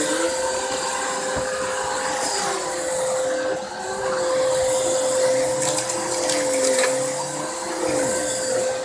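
Vacuum cleaner running on a rug: a steady motor whine over a rushing hiss, with a lower tone that rises and falls every second or two and a brief dip in level about three and a half seconds in.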